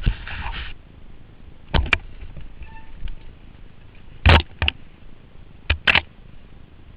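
Mountain bike rattling down a rough, rocky trail, heard through a helmet-mounted camera. A brief rushing noise opens, then sharp knocks come in pairs, about two, four and a half and six seconds in, as the bike hits rocks.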